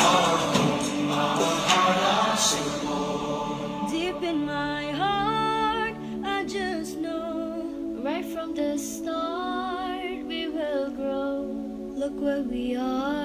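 Background music: a song's voices singing wordless harmonies over soft, held backing notes, after a louder, fuller passage fades in the first few seconds.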